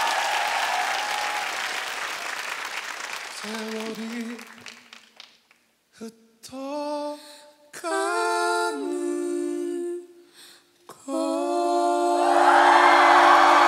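Applause dying away, then a man's and a girl's voices singing a few short unaccompanied phrases together with pauses between them. They hold the last note as loud applause and cheering break out near the end.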